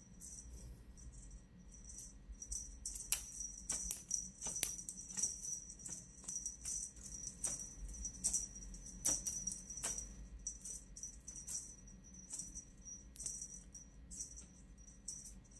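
Small bells on a cat wand toy jingling and rattling in irregular shakes, with sharp little clicks among them.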